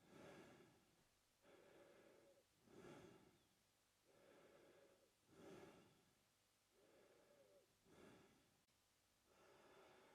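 A man breathing slowly and evenly through his open mouth, quiet and close. Each breath is a longer, softer draw followed by a shorter, louder one, about four breaths in all.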